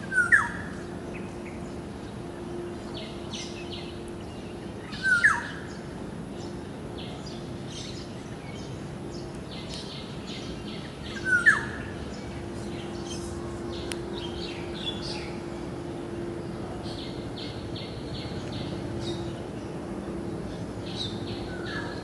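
Black-naped oriole calling: three loud short sliding whistled notes, about five to six seconds apart, with a fainter fourth near the end, over faint high chirping and a faint low steady hum.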